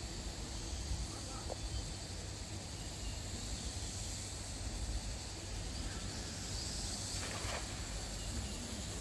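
Steady outdoor noise with a low rumble and a hiss, and about seven seconds in a brief faint splash as a thrown cast net lands spread on the water.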